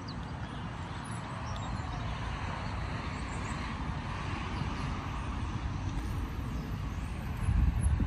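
Road traffic running steadily, with a heavier low rumble swelling near the end.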